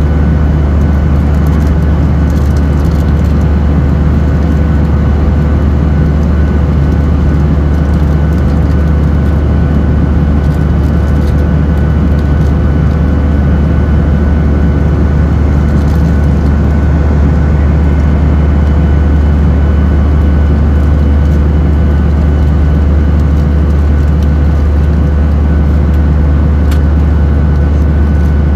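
Steady cabin noise of a Boeing 737-800 in flight: a deep, even rumble from its CFM56 jet engines and the airflow, with a few faint steady whining tones over it.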